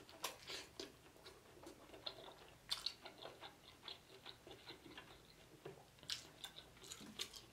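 Close mouth sounds of a person chewing a mouthful of sauced lobster tail meat: faint wet smacks and clicks coming irregularly, a little louder about three seconds in and again around six to seven seconds.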